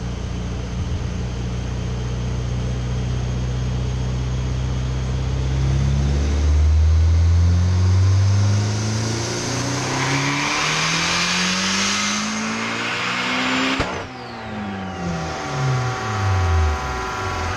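Compound-turbocharged Honda S2000 four-cylinder engine on a chassis dyno, making a wide-open-throttle pull: it runs steadily at low revs for about five seconds, then climbs smoothly in pitch for about eight seconds with a rising turbo whistle over it. A sharp crack comes as the throttle closes about fourteen seconds in, and the revs and whistle fall away.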